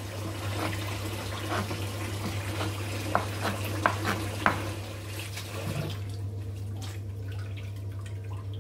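Kitchen knife cutting raw chicken breast on a bamboo cutting board, with several sharp knocks of the blade on the board around the middle. Under it runs a steady watery hiss that drops away about six seconds in, and a low hum.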